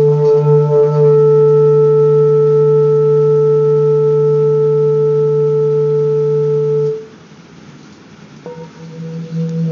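Handmade seven-metal Himalayan singing bowl ringing with a steady low hum and a few clear overtones, cut off abruptly about seven seconds in. About a second and a half later another bowl is struck and swells up toward the end.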